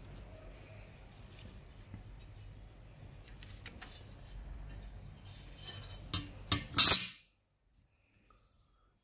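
Sheet-metal frame of a car radio being handled: light clicks and rustling, then a few sharp metallic clatters between six and seven seconds in as it is set down. The sound then cuts off suddenly.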